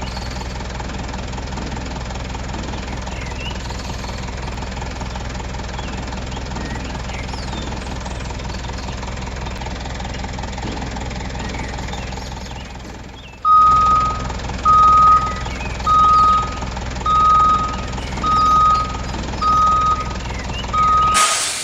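A vehicle engine runs steadily, dips briefly a little past halfway, and then keeps running while a reversing alarm beeps seven times, about once every 1.2 seconds, at one steady pitch. A short loud burst of noise comes right at the end.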